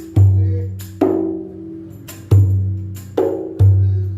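A rapai, the Acehnese frame drum, struck by hand five times at roughly one-second intervals. Deep booming open strokes alternate with higher-pitched ringing strokes, and each one rings out before the next.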